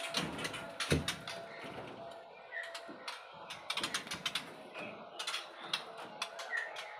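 Caged birds making runs of rapid clicking ticks, with a few short high chirps scattered through, and a low knock about a second in.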